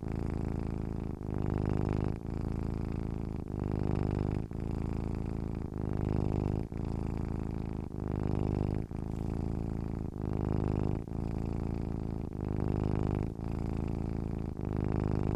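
Domestic cat purring steadily and close up, in a low rumble that changes with each breath in and out, about one phase a second.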